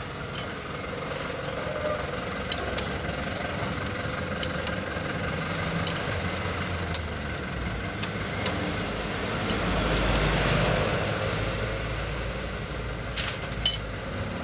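Sharp metallic clicks of a ring spanner working the bleed bolt on a diesel fuel-filter head, about ten scattered clicks with a quick cluster near the end. A steady mechanical hum runs underneath.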